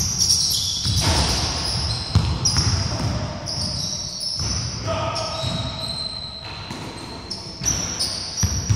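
Basketball bouncing repeatedly on a wooden gym floor during a half-court game, with sneakers squeaking on the boards. The sound echoes in a large hall, and players' voices come through now and then.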